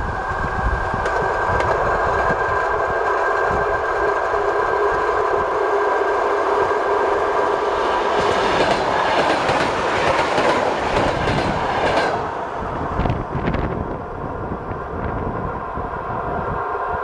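Train running on jointed track, the wheels clicking over the rail joints above a steady running hum. The clicking grows denser about eight seconds in and drops away suddenly around twelve seconds, with a few more clicks just after.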